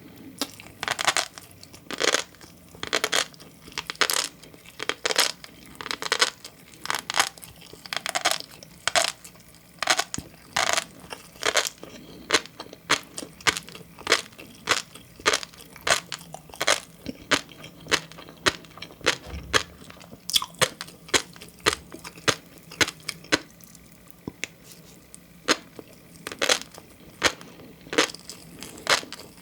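Close-miked chewing of green tobiko (flying fish roe): a dense run of sharp little pops and crunches as the eggs burst between the teeth, a few a second, easing off briefly about two-thirds of the way through.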